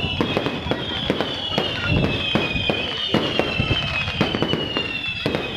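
Fireworks going off in a dense run of sharp bangs and crackles. Over them, a series of high whistles each slide down in pitch, one after another.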